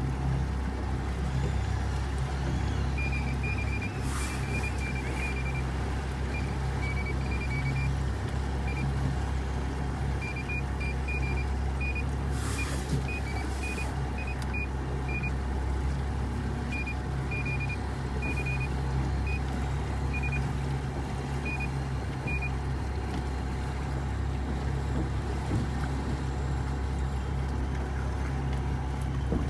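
Boat motor running steadily, with short, high electronic beeps at one pitch repeating irregularly through the first two-thirds: an echo sounder's fish alarm going off over a dense mass of fish.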